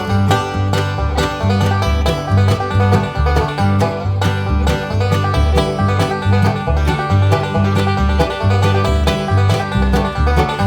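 Background music: a fast, bright plucked-string tune in a bluegrass or country style, with a steady bass line underneath.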